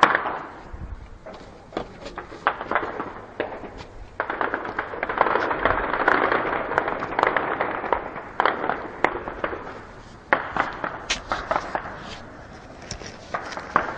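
Heavy gunfire: many shots cracking in quick, overlapping succession. The shots are densest through the middle, with single louder cracks about ten seconds in and another cluster near the end.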